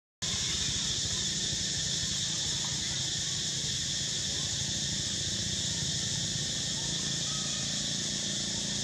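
Steady high-pitched chorus of insects, with a low steady hum beneath it.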